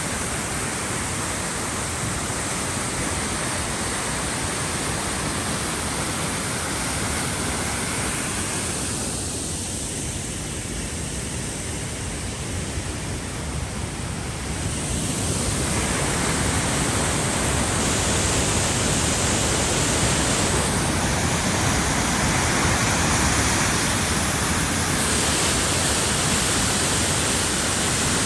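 A waterfall's steady rush of falling water, close by; it grows louder about halfway through.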